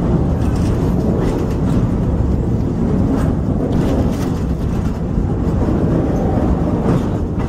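Train running slowly over rough track: a steady low rumble of wheels and carriage, with irregular knocks and clanks.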